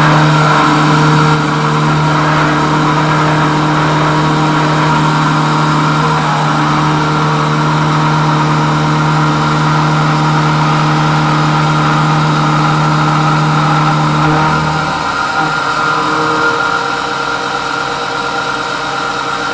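A DIY CNC milling machine's spindle running steadily while its end mill cuts a metal bracket, a constant machine whine with a hiss of cutting. About fifteen seconds in the lowest tone stops and the sound drops a little as the program is paused.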